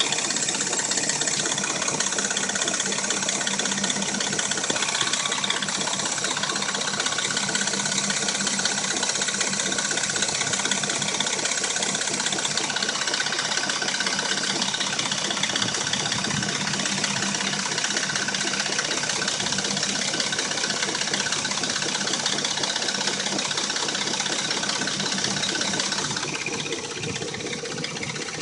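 Dodge Intrepid V6 engine idling warm with a steady rattle and knock, which the owner puts down to the timing chain. It drops a little in level near the end.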